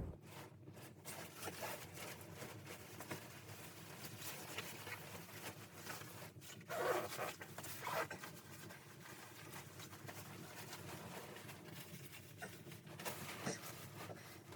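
Faint rustling and handling noises, many small clicks and scuffs, with louder scrapes about seven and eight seconds in and again near the end.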